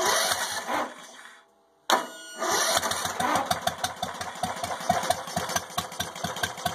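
Briggs & Stratton 14.5 HP Intek lawn-tractor engine cold-started without choke: a short burst of cranking, a brief gap, then the engine catches about two seconds in and keeps running with a steady, slightly uneven firing beat. It is cold and running a little too rich, on a carburetor still set for a bigger 18.5 HP engine.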